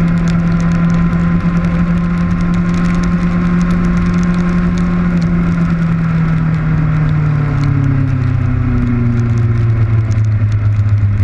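Kawasaki Ninja motorcycle engine running under way, its note dropping from about six seconds in as the bike slows for a turn. Rain hitting the camera housing makes a dense patter of small ticks, over wind rush.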